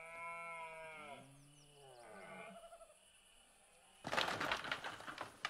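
Rutting stag roaring: a long hoarse call that rises and falls in pitch, trailing into a lower second call. About four seconds in, a louder clatter of knocks starts as the stags' antlers clash.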